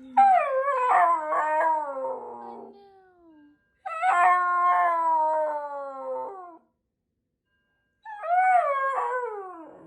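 Shiba Inu screaming at a fire alarm: three long howling wails, each sliding down in pitch, with short silent gaps between them.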